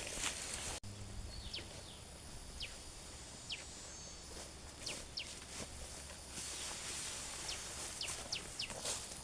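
Outdoor ambience of a steady hiss with small birds giving short, falling chirps scattered throughout. The background changes abruptly just under a second in.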